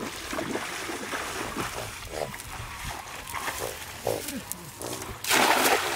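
A hand-thrown cast net swung out over a pond, with a few short low vocal sounds during the wind-up, then a loud rushing splash near the end as the net lands on the water.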